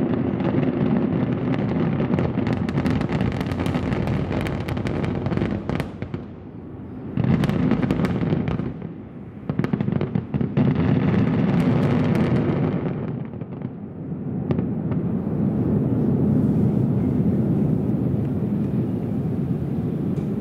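A fireworks finale at a distance: a dense barrage of rapid crackling and booming shells that drops off briefly twice. Near the end the crackle stops and a low continuous rumble remains.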